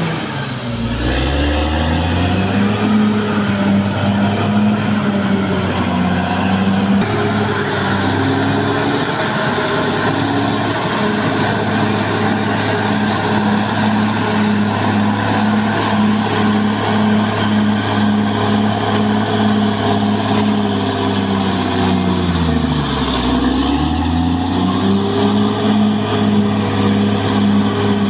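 Caterpillar D6R XL crawler dozer's diesel engine running hard and steady; its pitch drops sharply and climbs back up about a second in and again a little after the middle, as the revs fall and recover.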